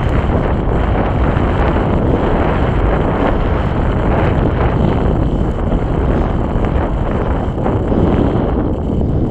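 Wind buffeting the microphone: a loud, steady, deep rumble with no breaks.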